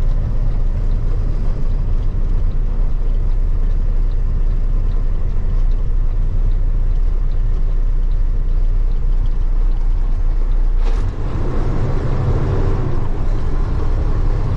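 Steady engine and road rumble of a moving truck, heard from inside the cab. Near the end there is a short click, after which the rumble changes a little and a faint steady hum joins it.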